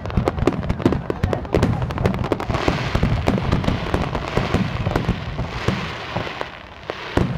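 Star mine fireworks barrage: many bangs in rapid succession, joined about two and a half seconds in by a dense crackling hiss of crackle effects. There is a short lull near the end before the bangs resume.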